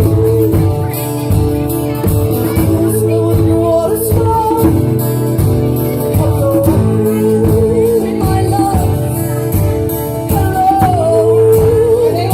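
Live band music: a singer's voice over guitar, with drums keeping a steady beat.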